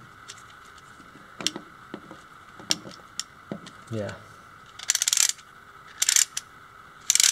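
A few light clicks of 3D-printed plastic parts being handled, then three short runs of rapid clicking from a 3D-printed plastic one-way ratchet as the spring drum's shaft is turned, its little teeth snapping over the ratchet.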